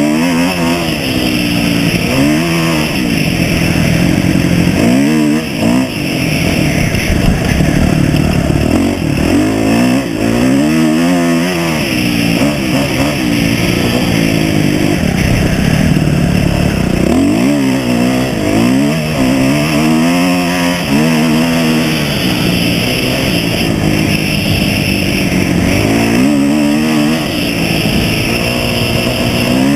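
Off-road vehicle engine running under load, its pitch rising and falling again and again as the throttle is opened and eased, with steady wind rush over the moving camera.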